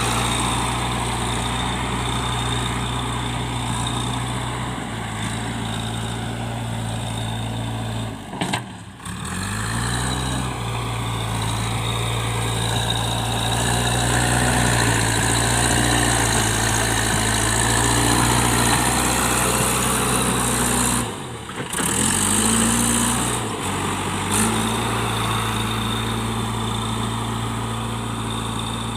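JCB 3DX backhoe loader's diesel engine running steadily as the machine works. The engine note drops out briefly twice, about nine seconds in and just past twenty seconds, and picks back up each time.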